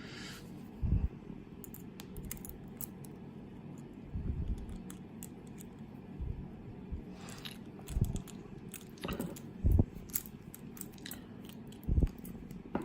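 Faint metallic clicks and scrapes of an overlifter pick and tension tool being worked into a lever padlock, with a few dull knocks as the lock is handled.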